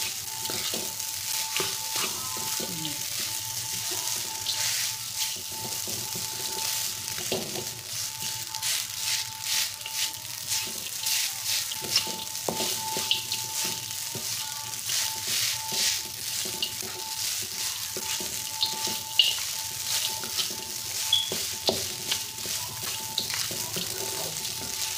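Fried rice sizzling in a wok while a wooden spatula stirs and tosses it, scraping and tapping against the pan again and again.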